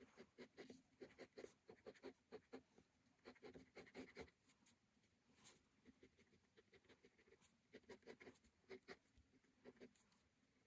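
Faint scratching of a ballpoint pen on sketchbook paper: short, quick strokes in bursts as a drawing is shaded in, with a lull about halfway through.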